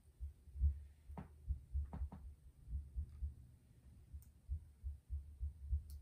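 Irregular soft low thumps, several close together at times. There are three sharper taps between about one and two seconds in, and a couple of faint high ticks later on.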